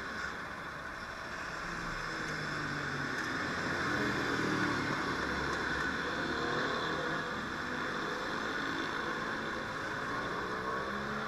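Steady motor vehicle engine and road noise, swelling slightly about four seconds in.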